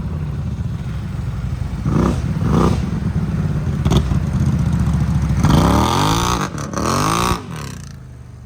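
ATV engine idling, blipped twice, then revved up and down in two long revs before dropping back to a quieter idle near the end.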